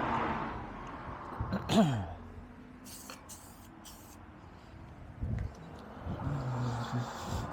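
Paint sprayer hissing as it sprays enamel, dying away within the first second and starting again near the end. About two seconds in there is a short, louder sound that falls in pitch, with a few light knocks after it.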